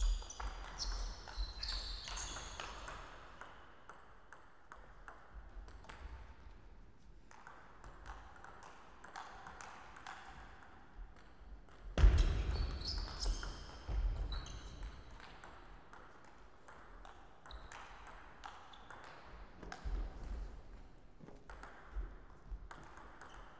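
Table tennis rallies: a plastic ball clicking back and forth off rackets and the table in quick runs, with short high squeaks from the players' shoes on the court floor. A heavy thump stands out about halfway through.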